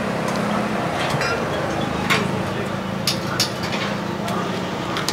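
Steady low hum of background noise, with a few light clicks and clinks about two and three seconds in.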